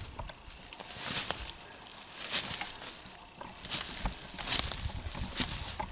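Irregular crunching rustles of footsteps through brush and dry vegetation, with soft low thuds, roughly one every second.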